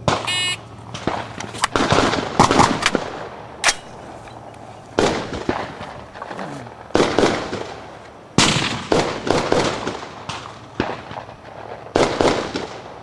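A shot timer's start buzzer beeps briefly, followed by a string of rifle shots, spaced irregularly a second or more apart, each with a ringing echo off the range.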